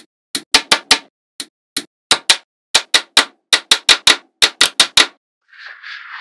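Small magnetic balls snapping together in quick, uneven clicks, about twenty in five seconds, followed near the end by a short hiss.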